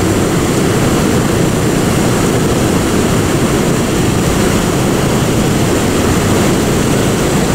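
Steady, loud low rushing noise with no distinct events or pauses.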